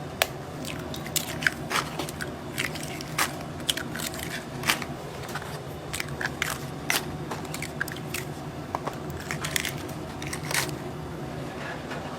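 Hand food preparation: scattered sharp clicks and crackles from handling and working the food and utensils, over a steady low hum.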